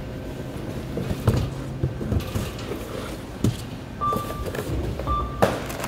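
Supermarket checkout background with a few knocks and thumps. In the last two seconds come two short, single-pitch electronic checkout beeps about a second apart.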